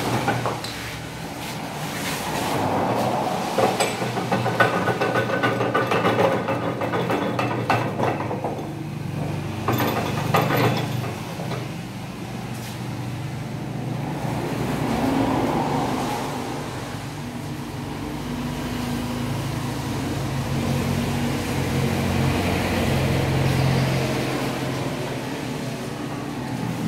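Metal parts and hand tools clinking and rattling as a diesel injection pump is taken apart on a workbench, busiest in the first half. A steady low hum runs underneath.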